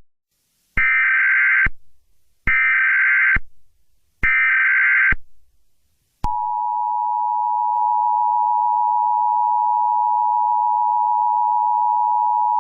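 Emergency Alert System broadcast opening: three short bursts of SAME header data, a harsh electronic screech each lasting about a second. About six seconds in, the steady two-tone EAS attention signal (853 and 960 Hz) begins and holds, announcing an emergency alert.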